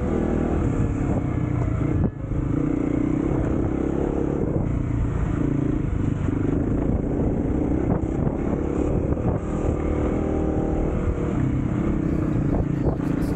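Kawasaki KLX 250's single-cylinder four-stroke engine running steadily under way, with a short drop in level about two seconds in and a few sharp clicks near the end.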